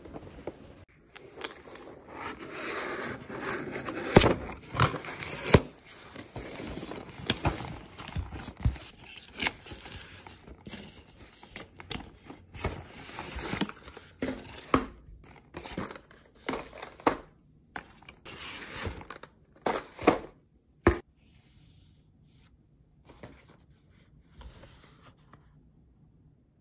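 Cardboard delivery box being unpacked: packing paper crinkling and tearing, with many sharp taps and knocks of cardboard being handled. The rustling dies down to faint handling for the last few seconds.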